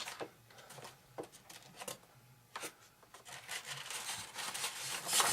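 Hands working on a foam model airplane: scattered small clicks and taps, then a scratchy scraping or rubbing that builds over the last second or so.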